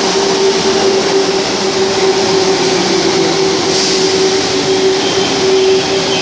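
Merseyrail Class 507 electric multiple unit running into an underground platform: a loud, steady rumble of wheels on rail with a steady hum, echoing in the tunnel station.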